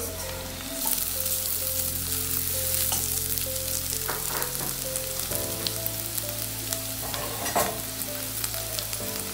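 Garlic-ginger paste and sliced onions sizzling in hot oil in a non-stick frying pan, stirred with a wooden spatula that scrapes and knocks against the pan now and then. The sizzle gets louder about a second in, as the paste hits the oil.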